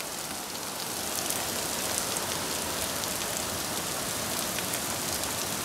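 Heavy storm rain pouring down: a steady hiss of rain with scattered sharp taps of drops hitting hard surfaces.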